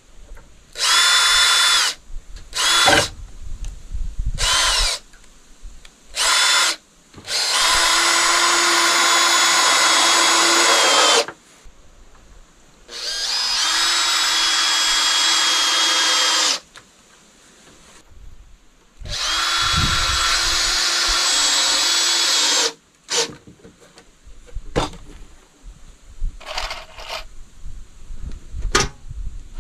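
Cordless drill-driver driving screws into the wooden boards of an apple crate in a series of bursts. Several short runs come first, then three long runs of about four seconds each with a steady motor whine, then a few brief runs near the end.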